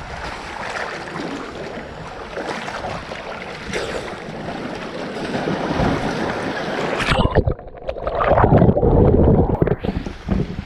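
Ocean surge splashing and sloshing against lava rock, recorded close at the waterline. About seven seconds in, the sound turns muffled and heavy for two or three seconds, its hiss gone, as the microphone is briefly under the water.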